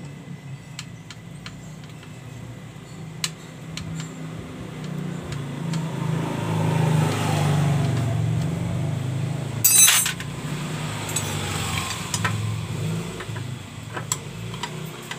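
Engine of a motor vehicle running nearby, a steady low hum that grows louder toward the middle and then fades away, with scattered light metallic clicks of hand tools and a short sharp clatter about two-thirds of the way through.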